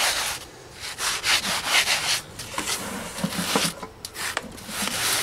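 Sponge float scrubbing wet repair mortar into a concrete step surface: a gritty rubbing in repeated back-and-forth strokes, with short breaks about half a second in and again about four seconds in. The mortar is being worked into the pits to fill them.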